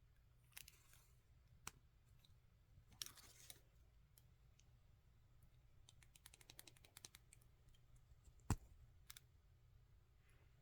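Makeup products and their packaging being handled: faint rustles of wrapping, then a quick run of small clicks, and one sharper click later on.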